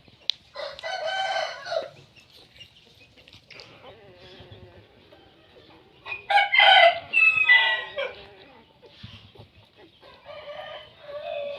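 A rooster crowing. There is a call near the start, a louder, longer crow in several segments about six seconds in, and a fainter call near the end.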